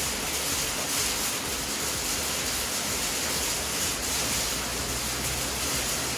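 Steady, even hiss with no distinct knocks or clicks.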